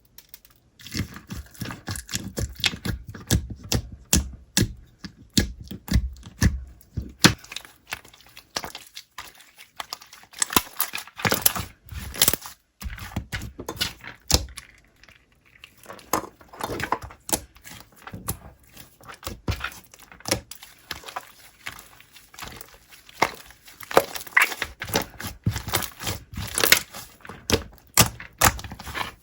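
Slime being squeezed, poked and stretched by hand, with dense, irregular crackling and popping, starting about a second in and easing off briefly about halfway through.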